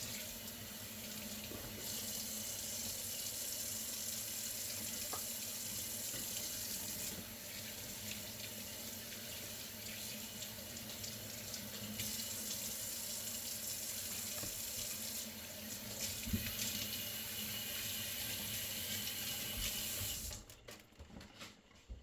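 Kitchen tap running into the sink while raw lamb shoulder chops are rinsed under it. The stream's hiss shifts several times, then the tap is shut off about 20 seconds in, followed by a few light knocks.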